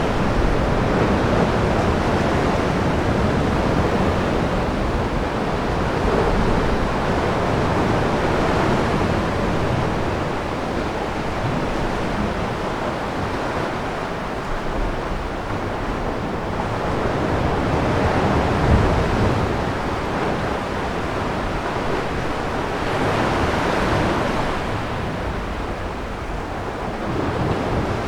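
Sea surf washing into a sea cave, a continuous rushing wash that swells and ebbs several times as waves come in.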